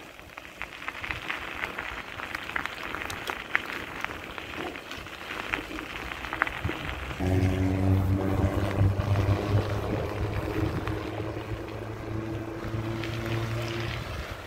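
Crunching on a gravel track for the first half, then from about seven seconds in a large engine starts up close by and runs steadily with a low hum.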